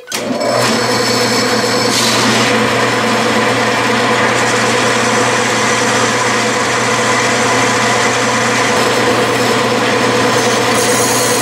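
Metal lathe starting up and running steadily while a cutoff tool plunge-cuts a groove in a small metal rod, with a steady machine hum throughout and a few higher tones coming in near the end.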